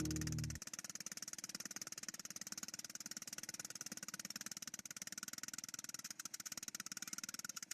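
Jackhammer running, a rapid, even train of hammer blows, after music cuts off about half a second in.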